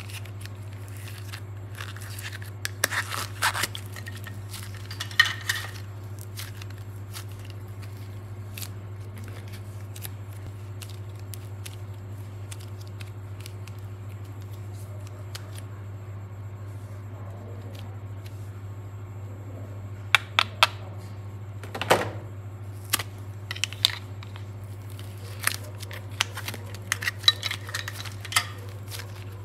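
Soft modelling clay being peeled and torn from a thin clear plastic mould and handled, with bunches of sharp plastic crinkles and clicks in the first few seconds and again from about two-thirds in, quieter clay handling between. A steady low hum sits underneath.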